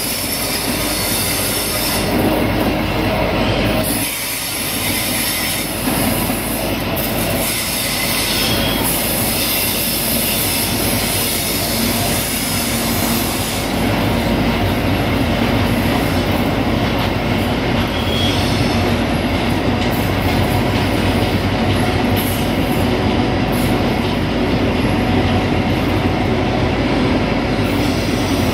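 Direct Rail Services Class 57 diesel locomotive running slowly with a train of loaded timber wagons: steady diesel engine note, with the wagons' wheels running over the track.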